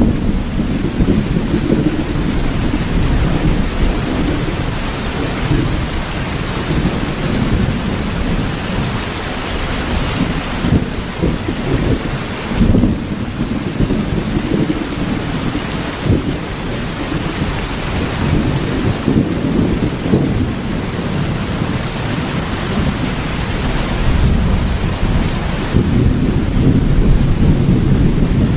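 Steady heavy rain with a continuous low rumble of thunder beneath it, swelling now and then.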